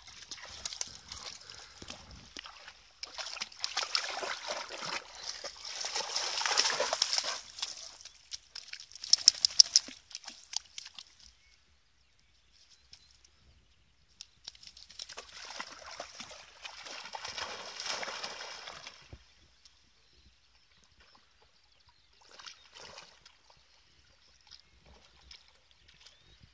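A dog wading and swimming in a pond, the water sloshing and splashing around it in two spells, the second ending a few seconds before the close, with only faint splashes after.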